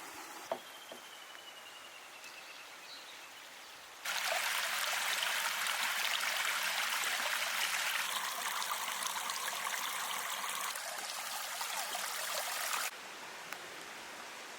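Flowing water rushing, a steady hiss that comes in suddenly about four seconds in and cuts off abruptly near the end, after a quiet outdoor background.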